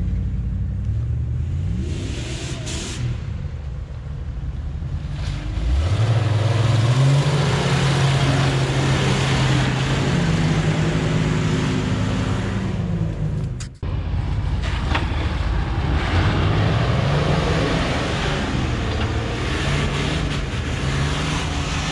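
Jeep 4x4 engines working hard as they climb a steep, muddy slope. About six seconds in the revs rise sharply and are held high under load. Near the end of the second third the sound cuts off abruptly, then another engine is heard pulling up the hill.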